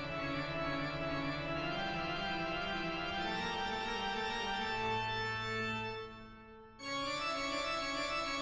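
Background music of slow, sustained chords that fades away about six seconds in, then resumes with a new chord just before seven seconds.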